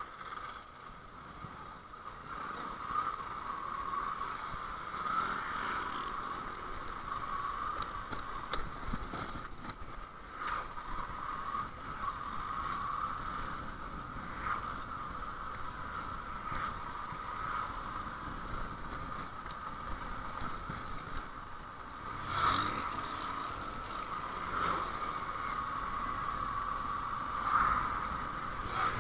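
Motorcycle on the move, heard from the rider's seat: a steady hum that wavers slightly in pitch, with a few short knocks, the loudest about two-thirds of the way through and near the end.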